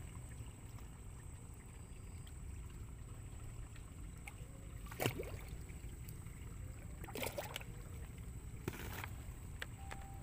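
A hooked snapper splashing and thrashing as it is lifted out of the pond on the line: a sharp splash about halfway through, then two more short splashes or slaps a second and a half apart, over a steady low rumble.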